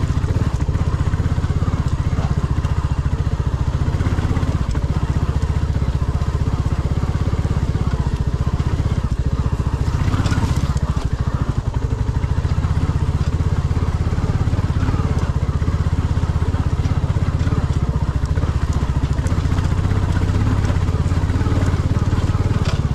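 Royal Enfield Classic 350's single-cylinder engine running steadily as the bike is ridden over a rough dirt track, with a brief clatter about ten seconds in.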